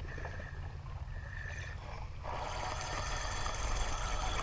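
Spinning fishing reel being cranked to wind in line, starting about two seconds in: a steady mechanical whirring of the reel's gears over a low wind rumble on the microphone.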